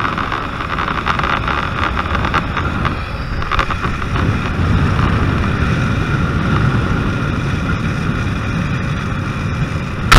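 Zip-line trolley pulleys running fast along the steel cable with a steady whine, under heavy low wind rumble on the helmet camera's microphone. A sharp loud knock comes at the very end.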